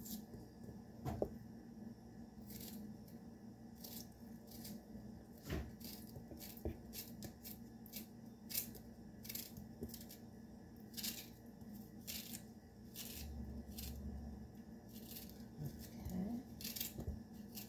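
Serrated kitchen knife cutting fresh strawberries into small pieces held in the hand: a string of short, irregular crisp cuts and snips, over a faint steady hum.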